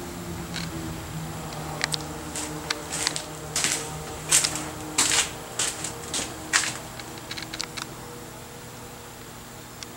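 A run of sharp clicks and taps, densest and loudest in the middle few seconds, over quiet background music that fades away.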